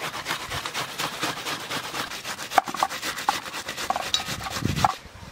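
Ripe watermelon flesh rubbed back and forth on a stainless-steel hand grater: a quick, even run of rasping strokes, several a second, that stops near the end.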